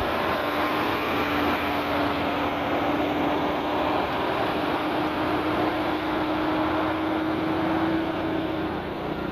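Heavy tractor-trailer's diesel engine running under load as the truck pulls slowly past at close range, a steady drone with a held hum.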